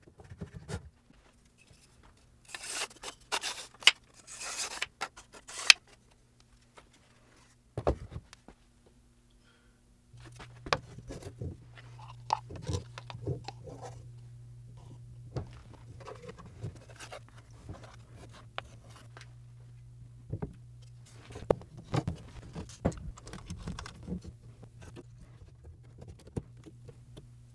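A bamboo-sheathed katana being handled on a wooden workbench: scrapes and sharp clicks as the blade slides in and out of its bamboo scabbard, with a few wooden knocks. A steady low hum joins about ten seconds in.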